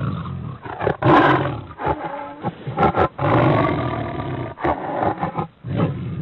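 Tiger roaring, several loud roars one after another.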